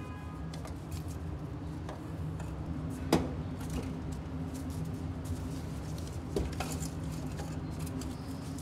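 Split wooden boards clacking and knocking as they are dropped and stacked onto charcoal briquettes in the grill trough, with a sharp knock about three seconds in and another about six and a half seconds in, over a steady low hum.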